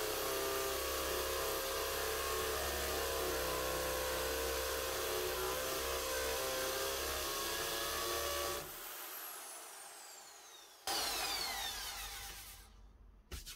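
Corded hammer drill running steadily as it bores into a masonry wall. About nine seconds in, the trigger is released and the motor winds down; it is run again briefly and winds down once more.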